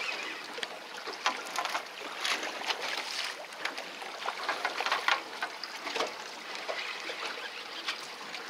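Water lapping and splashing against the hull of a small fishing boat, with scattered light clicks and knocks throughout.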